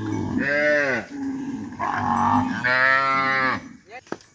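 Cattle mooing: three loud calls in quick succession, the first rising and falling in pitch, the second rougher, the last one long.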